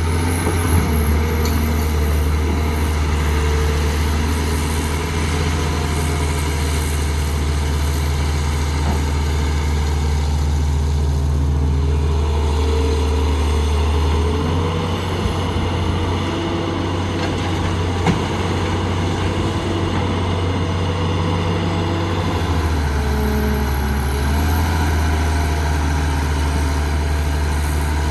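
Heavy diesel earthmoving equipment running steadily, with its engine note shifting about halfway through and again near the end, and a faint high whine above it.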